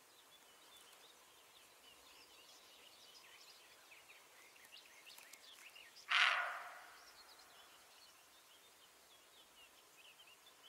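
A roe deer doe gives one loud, hoarse bark about six seconds in, with a short fading tail. This is the roe deer's alarm call. Faint bird chirping continues around it.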